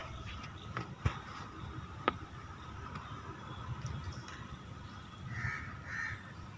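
A crow cawing twice, close together near the end. Two sharp clicks come in the first couple of seconds, over a faint steady tone and low background rumble.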